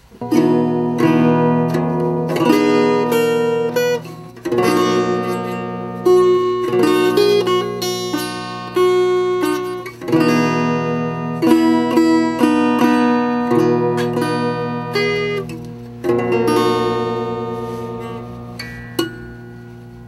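Acoustic guitar music: chords struck and left to ring, a new chord every two seconds or so, over held low notes.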